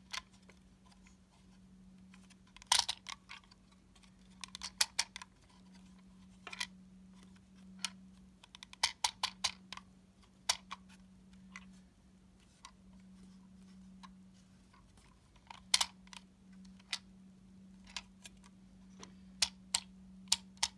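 Lego plastic parts clicking and rattling irregularly as a Lego puzzle box is tilted and turned, its loose internal pins sliding and knocking inside the gravity lock. A faint steady hum runs underneath.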